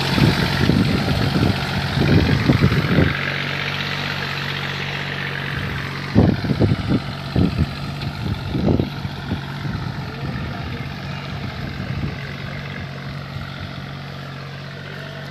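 Deutz-Fahr Agrolux 50 hp tractor engine running steadily under load while it pulls a tine cultivator through dry soil, fading as the tractor moves away. Irregular low thumps come in the first three seconds and again around six to nine seconds in.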